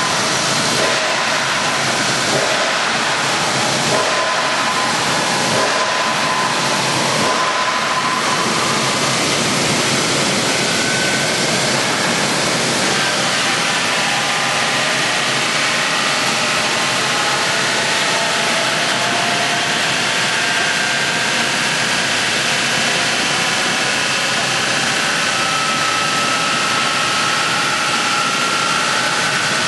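Wood sawdust making machine, a log crusher that combines a chipper and a hammer mill, running loaded as it grinds wood into fine sawdust: a loud, steady rushing noise with a faint whine.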